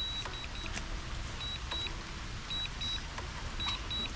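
DJI drone remote controller beeping in repeated pairs of short high beeps, about one pair a second: the return-to-home alert, given after the drone reached its flight distance limit.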